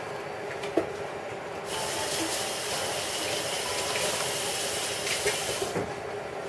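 A short knock near the start, then water running from a kitchen tap for about four seconds, turned on and off abruptly.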